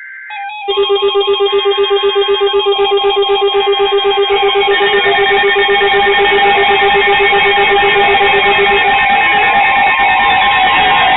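Several weather alert radios sounding their alarms at once, triggered by an incoming NOAA Weather Radio alert. Steady electronic tones and pulsing beeps, about five a second, layer up under a second in, and a low pulsing beep drops out near the end.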